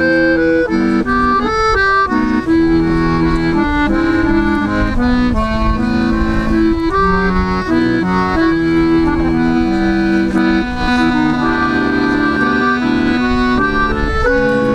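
Accordion playing a melody over held bass chords, with a faint low rumble underneath.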